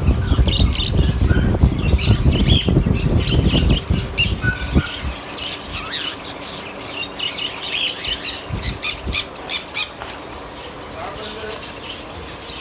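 Caged birds squawking and chirping in many short, sharp calls, over a loud low rumble that drops away about four seconds in.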